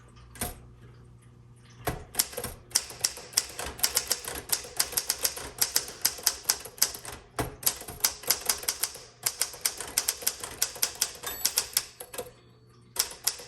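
A 1960 Smith Corona Sterling manual typewriter being typed on at a quick, steady pace, several sharp keystrokes a second. It starts about two seconds in, breaks off briefly twice, and pauses for about a second near the end before resuming.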